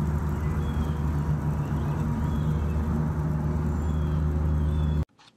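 A steady low mechanical hum, like a motor running, with a few faint short high chirps over it. It cuts off abruptly about five seconds in.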